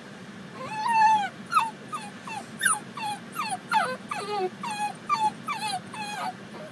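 A Basenji dog crying out in a quick run of about a dozen short, high whining yips, most of them dropping in pitch, about two a second. This is distress at being left in the car after her owner walked away.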